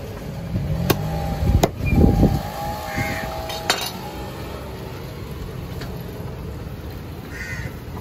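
A few sharp knocks and a heavy thud of a big chopping knife striking a wooden chopping block in the first four seconds. Under them runs a steady low rumble of road traffic.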